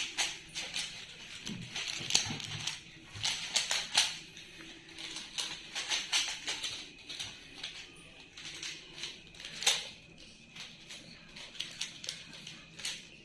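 Plastic 3x3 Rubik's cubes being turned quickly by several children: a steady run of irregular, rapid clicking and clattering of the layers.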